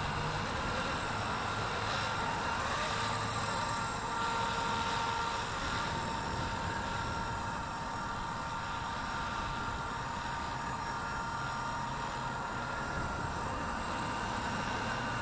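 Blade 230S V2 electric RC helicopter in flight, its brushless motor and rotor giving a steady, high-pitched whine.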